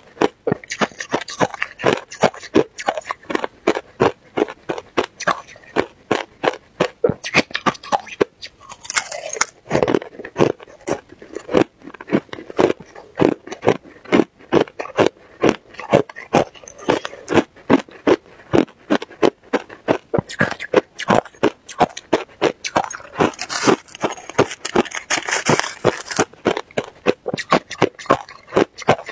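Crushed ice being chewed close to the microphone: a quick, continuous run of sharp crunches, several each second.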